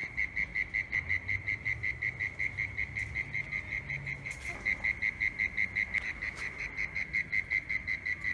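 An animal calling steadily: a high-pitched pulsing chirp, about four to five pulses a second, with a few faint clicks.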